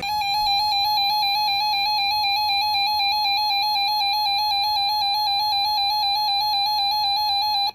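Emergency Alert System attention signal: a loud, steady electronic two-tone alarm that sounds for about eight seconds and cuts off abruptly. It announces the start of a new emergency alert, here a severe thunderstorm warning.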